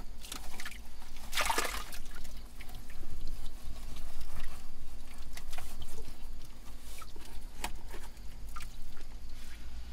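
Gloved hand digging in wet privy muck: squelching mud and scattered small clicks and scrapes, with a louder wet scrape about a second and a half in.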